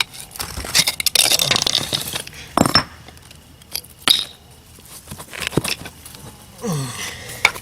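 Steel screwdrivers prying and scraping at concrete pavers, with scattered sharp clinks of metal on stone and bricks knocking against each other as they are worked loose.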